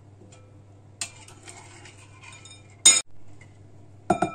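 Kitchen bowl and utensils clinking and knocking while flour is added to the dough mixture. There is a light clink about a second in, a sharp knock near three seconds, and a quick run of ringing clinks near the end.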